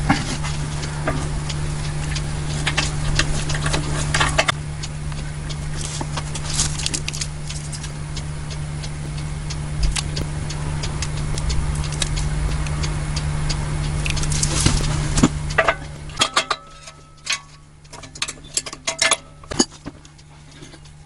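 Metal parts and fittings clinking and tapping as an air compressor is reassembled by hand, over a steady low hum; the hum cuts out about three-quarters of the way through, leaving separate clicks and knocks.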